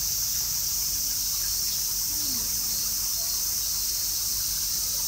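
Steady, high-pitched insect chorus shrilling without a break.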